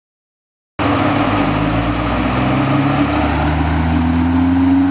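Vibroseis seismic truck running, a loud steady drone with several low tones, some rising slowly in pitch. It cuts in suddenly about a second in.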